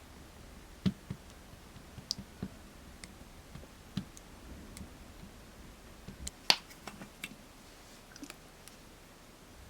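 Scattered small clicks and taps from materials and tools being handled on a work surface while slime is mixed, the sharpest about six and a half seconds in.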